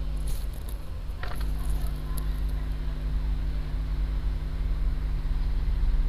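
Steady low electrical hum, with a few light clicks of handling in the first couple of seconds.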